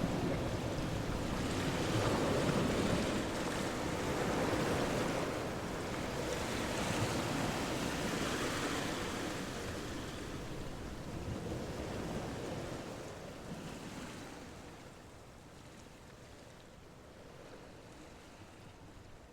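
A steady rushing noise with no distinct tones or knocks, growing fainter over the last several seconds.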